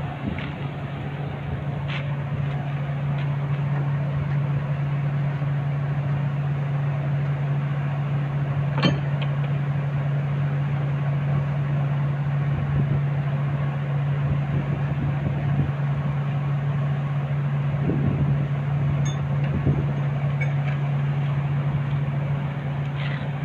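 Overhauled Caterpillar D6D bulldozer's six-cylinder diesel engine running steadily at an even hum, with one sharp click about nine seconds in. The rough 'brodot-brodot' knocking is completely gone, the sign of a successful overhaul.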